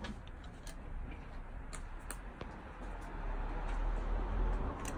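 Hand caulking gun clicking now and then as its trigger is squeezed, laying a bead of windshield adhesive along the glass frame. A low rumble swells in the second half.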